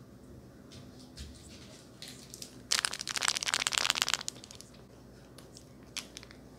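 A small plastic packet crinkled and crushed close to the microphone: a dense crackling for about a second and a half near the middle, with a few faint clicks and rustles around it.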